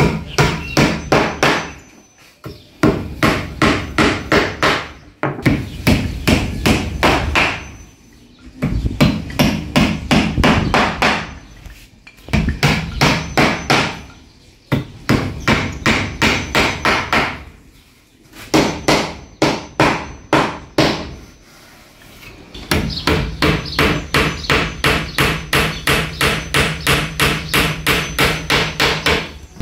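Rapid repeated striking, about four blows a second, in runs of a few seconds broken by short pauses; the longest run comes near the end.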